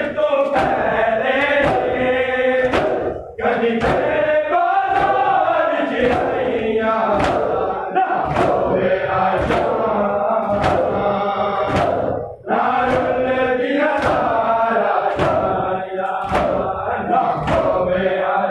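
Men chanting a noha together over a steady beat of hands striking their chests (matam), breaking off briefly twice.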